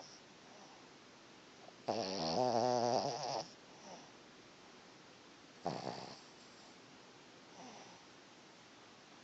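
Snoring in sleep: a long pitched, wavering snore about two seconds in, a short one past the middle and a faint one later, with quiet breaths between.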